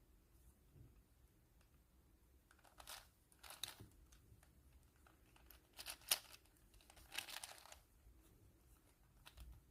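Plastic 4x4 Rubik's cube layers being turned by hand: a handful of short, faint scraping clacks spaced a second or two apart.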